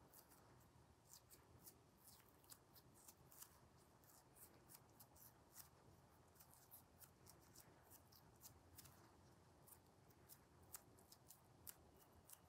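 Faint, irregular small clicks and crackles of hands folding and pinching a piece of whole-wheat sourdough dough into a smooth ball.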